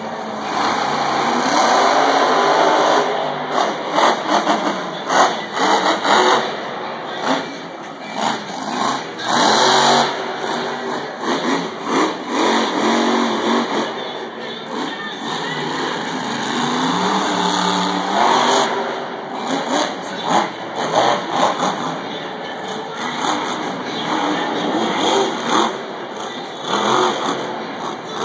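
Monster trucks' supercharged V8 engines revving hard, the pitch rising and falling, over the roar of a stadium crowd.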